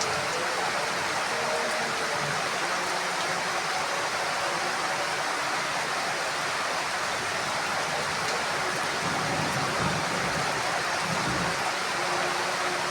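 Heavy rain falling steadily on a roof, an even hiss of water, with a faint low rumble about ten seconds in.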